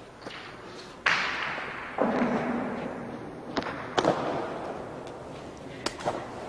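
Hard ball strikes echoing around a large indoor frontón court: a loud hit about a second in, another at two seconds and a third at four seconds, each ringing on in the hall, with sharper, smaller cracks between.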